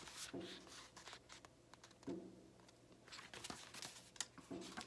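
Near silence in a small room, with faint rustles and small clicks of a hardback picture book being held open and handled.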